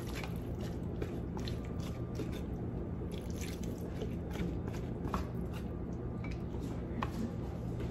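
Water poured from a glass bowl into a hot pan of sautéing vegetables, the pan crackling with scattered small pops as the water meets the hot oil; the water is added so the squash steams through.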